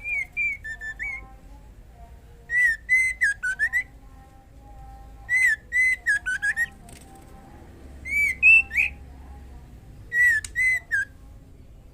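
Female white-rumped shama calling in short phrases of clear, bending whistled notes, five phrases about two seconds apart. It is the call of a female in breeding condition summoning a male.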